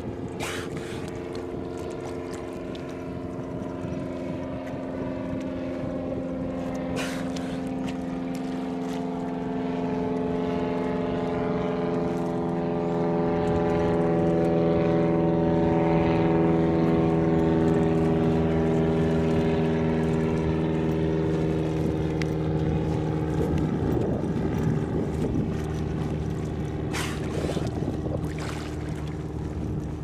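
Motorboat engine humming as a boat passes, growing louder to a peak about halfway through and then fading, with a few brief clicks.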